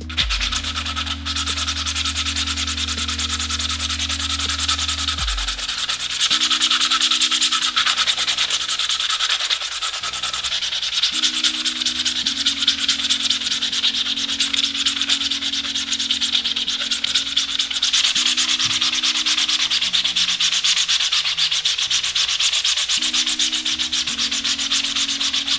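Sanding sponge rubbed in quick, continuous strokes over a 3D-printed plastic camera body, a steady scratchy hiss. The sanding is wearing the shiny layer-line surface of the print down to a matte finish.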